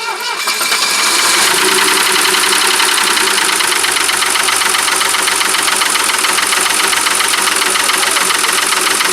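Mercedes W126's M110 twin-cam straight-six engine, just started, settling into a steady idle over the first second, with a knock in the engine that the owner wants diagnosed. It is running without its third cylinder firing, oil being thrown into that cylinder from above.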